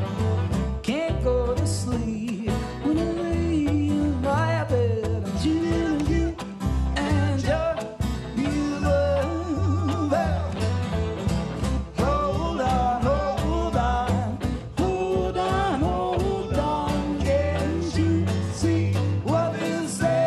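Live band playing a song on fiddle, acoustic guitar and upright bass, with a sung lead vocal.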